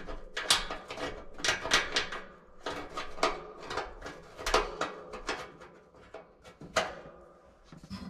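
Irregular small metallic clicks and scrapes as a quarter-inch sheet metal screw and a thermal limit switch are handled and fitted by hand against a dryer's sheet-metal housing. The clicks thin out near the end.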